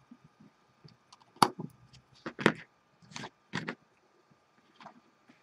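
Sharp metallic clicks and taps of small parts being handled on a rebuildable atomizer deck during a coil build. Two loud clicks come about a second apart, then several softer ones.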